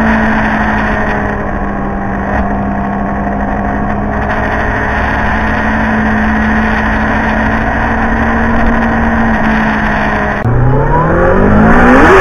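Sport motorcycle engine held at steady revs through a long bend, with wind rushing over the bike-mounted camera. About ten seconds in, an abrupt cut brings another motorcycle's engine revving up, its pitch rising fast as it accelerates.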